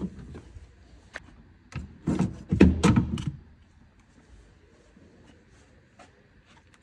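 Clicks, knocks and rattling of a car door lock assembly being worked free and handled, bunched together about two to three and a half seconds in, then only a few faint ticks.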